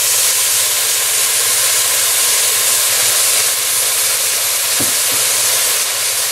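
White wine poured into a hot pot of toasted risotto rice, sizzling and hissing loudly as it boils off on contact (deglazing). The hiss is steady and eases a little near the end, with two light knocks about five seconds in.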